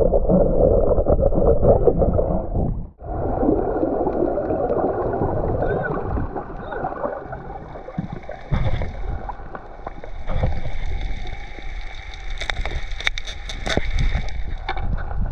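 Muffled churning water and bubbling heard through an underwater camera's housing, broken off briefly about three seconds in. Scattered sharp clicks and crackles come in the last few seconds.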